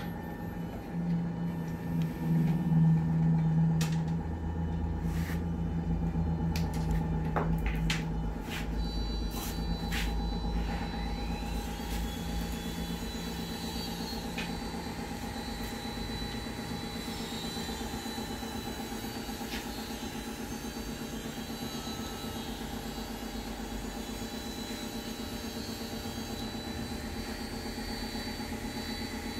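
A steady low rumble with a hum, swelling over the first few seconds and easing after about twelve seconds. Several sharp clicks fall in the first ten seconds.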